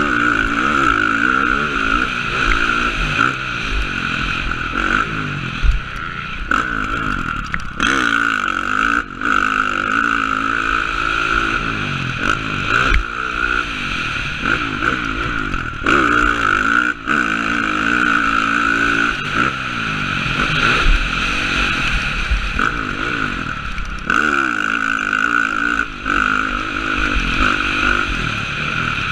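Motocross dirt bike engine revving hard and easing off over and over, its pitch climbing and dropping as the rider accelerates, shifts and rolls off for the turns and jumps, heard from a helmet-mounted camera.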